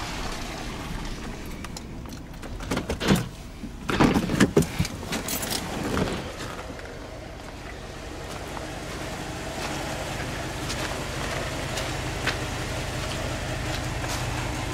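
A vehicle engine idling steadily, with a few knocks and clatters, like a door and handling, about three to six seconds in.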